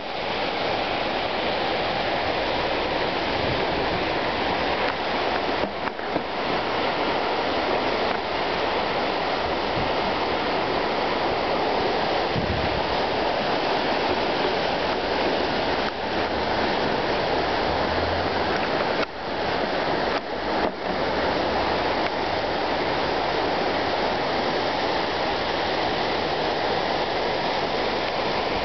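The Arno in flood after heavy rain, its high, fast brown water rushing and churning past a concrete bridge pier: a steady, even rush of water.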